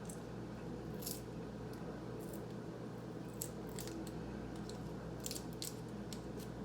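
A few faint crinkles and clicks of a soft candy's wrapper being peeled open, over a steady low hum.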